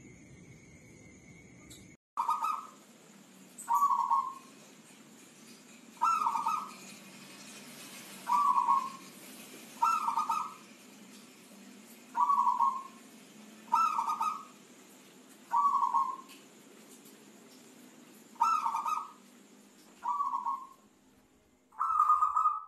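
Zebra dove (perkutut) cooing: a series of short, mellow coos repeated about every two seconds.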